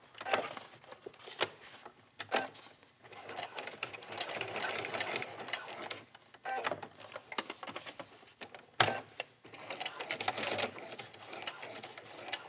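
Electric sewing machine with a walking foot stitching through a folded fabric strap, running in short bursts that stop and start as the stitching pivots at the corners of a square. A sharp click comes a little before the machine starts its last run.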